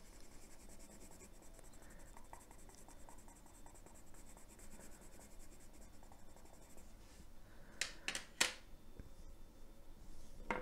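A Derwent metallic watercolour pencil rubbing faintly on paper, pressed hard to burnish the colour. About eight seconds in come three sharp clicks close together as pencils knock against the metal tin, and one more click near the end.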